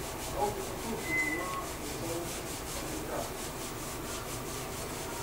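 Budgerigar chicks making a rhythmic raspy scraping noise, about five strokes a second, with a short high chirp about a second in.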